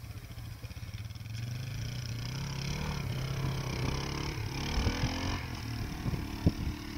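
Small single-cylinder engine of an ATC three-wheeler running as it is ridden off across rough ground, its note getting louder about a second in and wavering with the throttle. A single sharp knock near the end.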